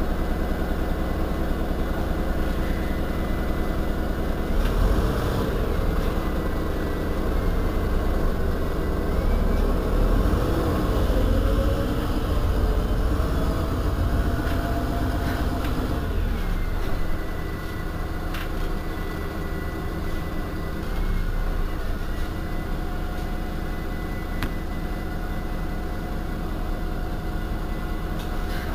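Heuliez GX 137 city bus's diesel engine running on the move, heard on board: the engine note rises and pulls for several seconds, then eases off about two-thirds of the way in to a quieter, steady running. A thin high whine runs along with it.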